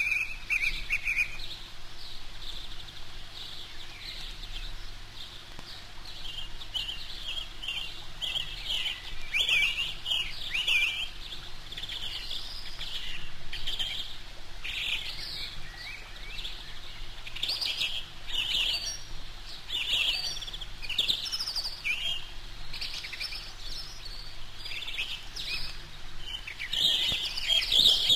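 Eurasian coot chicks peeping: many short, high-pitched calls in an irregular stream, sparse at first and thicker from about eight seconds in, typical of chicks begging for food from the parent at the nest.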